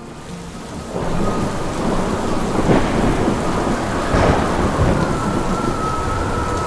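Heavy rain pouring with rolling thunder, which swells twice in the middle.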